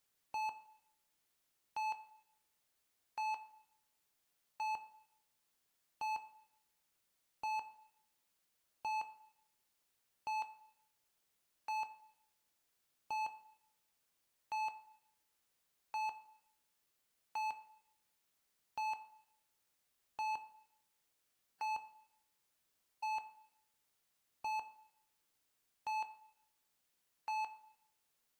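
Heart rate monitor beeping in a steady rhythm, one short beep about every one and a half seconds. Each beep is a single high tone that dies away quickly.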